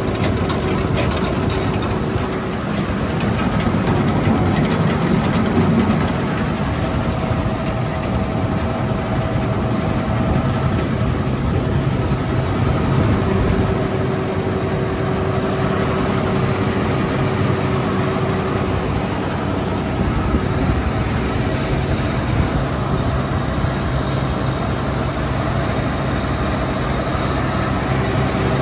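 A John Deere 9570 combine running steadily while parked, a broad even machine noise with a few steady whining tones over it.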